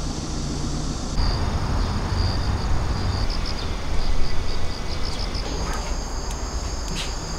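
Outdoor ambience: a steady low rumble of distant traffic with short, high chirps, and a steady high insect buzz that comes in about two thirds of the way through.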